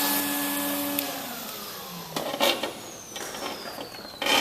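Vacuum cleaner running, then switched off about a second in and winding down with a falling whine. A few short knocks follow, the loudest near the end.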